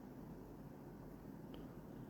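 Quiet room tone, a steady low background hum, with one faint light click about a second and a half in.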